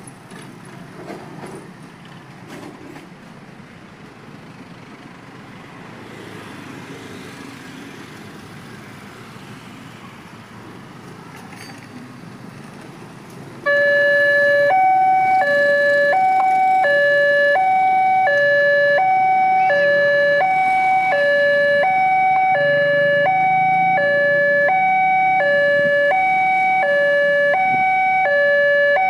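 Passing road traffic of cars and motorcycles. About halfway through, a railway level-crossing alarm starts suddenly and loudly: an electronic two-note signal, high and low alternating, each note about half a second, warning that a train is approaching and the barriers are closing.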